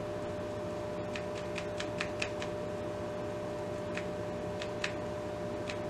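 Light clicks and taps of paint being dabbed onto a book page from a small pot of pink paint, about a dozen scattered clicks, most of them bunched in the first half. A steady electrical hum runs underneath.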